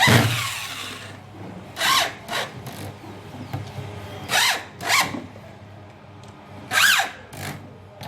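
Handheld power screwdriver run in short bursts, about seven quick spins in pairs, its motor pitch rising and falling with each one as it drives in the four housing screws of a concrete breaker being reassembled.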